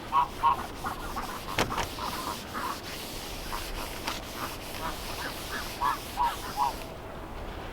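Domestic ducks quacking in short runs of calls, a cluster near the start and another about six seconds in. A single sharp click comes a little over a second and a half in.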